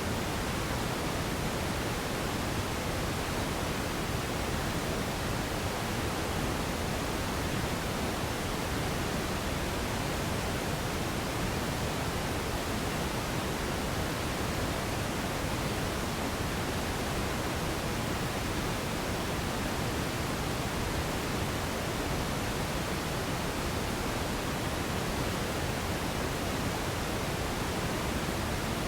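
Radio static: a steady, even hiss with no tones, clicks or voices, unchanging throughout.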